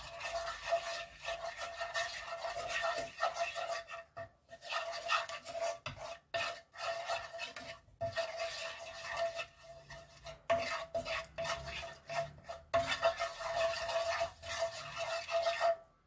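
Wooden spoon stirring and scraping a thick, sticky red-pepper sauce around a nonstick frying pan, in runs of strokes broken by brief pauses.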